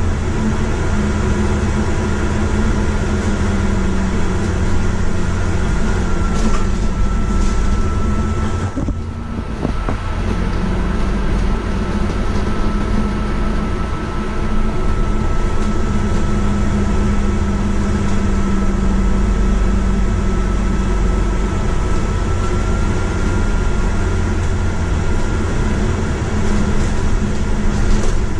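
Bus engine and road noise heard from inside the moving bus, a steady low rumble with a thin high whine over most of it. The engine note eases briefly about nine seconds in.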